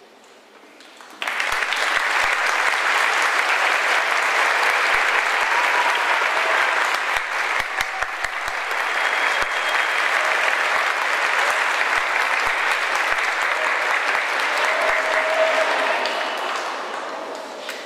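Audience applauding: clapping breaks out suddenly about a second in, holds steady and loud, and tails off near the end.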